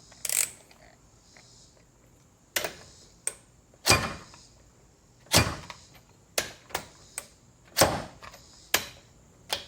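DeWalt DCF513 20V cordless ratchet making repeated short trigger pulls against a bolt torqued to 120 ft-lb: a string of brief bursts and clunks a second or two apart, each try failing to break the bolt loose.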